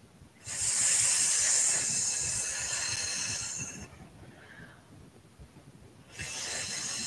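A woman breathing out a long hissing 'sss', the qigong healing sound for the lungs. One hiss lasts about three seconds, and a second starts about six seconds in.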